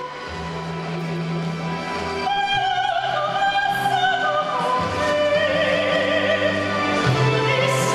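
A woman singing opera with a wide vibrato over an instrumental accompaniment of steady low notes. Her voice enters about two seconds in, and the music grows louder throughout.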